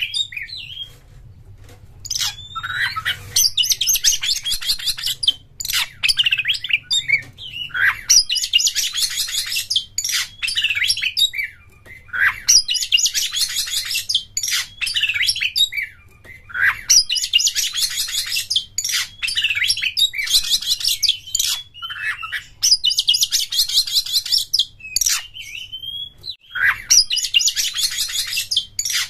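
Oriental magpie-robin singing a fast, high chattering song in repeated bursts about every four to five seconds, with sharp single call notes between them.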